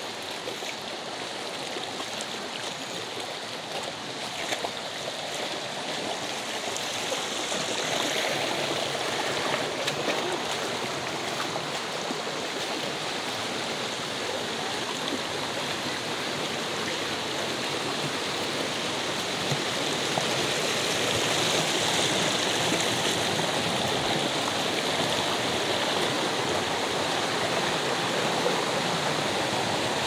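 Shallow, fast mountain stream rushing over rocks: a steady, even rush of water that grows gradually louder.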